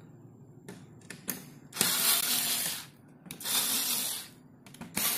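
Screwdriver backing screws out of a TV power-supply board: a few small clicks, then three mechanical bursts of about a second each, one per screw turned out.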